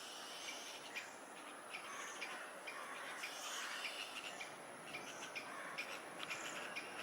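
Faint outdoor birdsong: many short chirps from small birds over a steady high-pitched insect drone.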